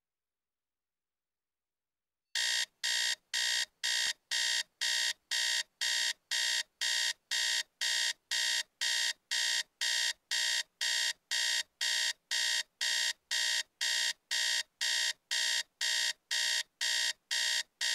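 Electronic alarm clock beeping: a steady run of identical high-pitched beeps, about two a second, that starts a couple of seconds in and stops just before the end.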